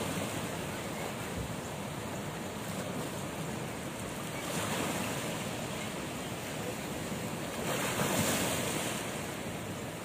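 Small sea waves washing in over rocks and a pebble beach: a steady surf hiss, with one wave surging in about halfway through and a louder one about eight seconds in.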